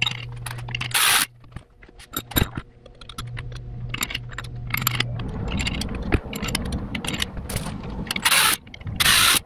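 Steel bolts, washers and a socket clinking and scraping against the aluminium halves of a Subaru EJ25 engine block as the case bolts are fitted, with short bursts of a cordless drill near the end spinning the bolts in on a long socket extension.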